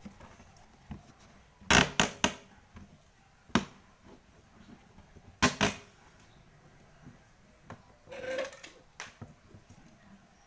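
A few sharp knocks and clicks in small groups, with a short scraping rustle near the end.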